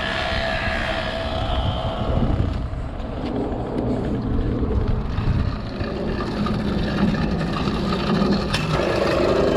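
Small motorized-bicycle engine, started cold, running rough and uneven and struggling to keep going: it doesn't sound like it wants to start.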